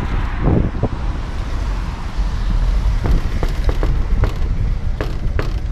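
A fist knocking on a painted metal door, about eight raps in quick succession starting about halfway in, over a steady low rumble of wind on the microphone.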